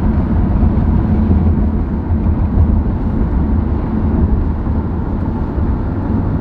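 Steady low rumble of a car driving at highway speed, heard from inside the cabin: road and engine noise with no breaks.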